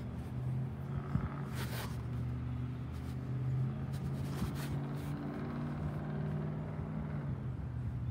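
Yard waste truck's engine running steadily, with a couple of short hisses about two and four and a half seconds in.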